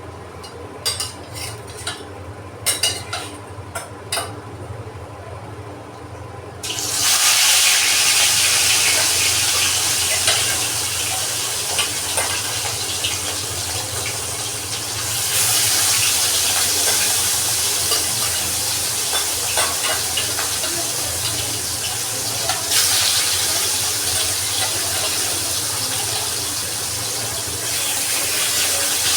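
A few light clinks, then food dropped into hot oil starts frying about seven seconds in: a loud, steady sizzle that swells twice.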